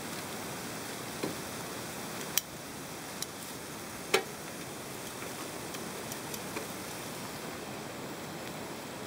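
Marinated beef short ribs sizzling on a foil-lined grill: a steady hiss, with a few sharp clicks, the loudest about two and four seconds in.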